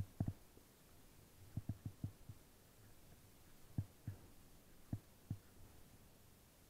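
About ten soft, low thumps at uneven spacing, a cluster in the first half then single ones, over a faint steady hiss.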